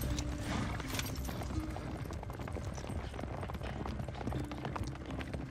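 Horse galloping on hard, dry dirt: a fast, continuous run of hoofbeats.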